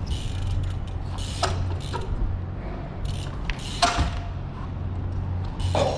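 Trials bike hopping on its back wheel onto wooden sleepers: several sharp knocks of the tyre and bike landing, the loudest about four seconds in, over a steady low hum.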